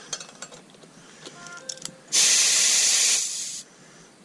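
Compressed air hissing in one burst of about a second and a half, starting about two seconds in and tapering off, as an airline inflates a motorcycle tyre fitted with a Tubliss system to seat the bead.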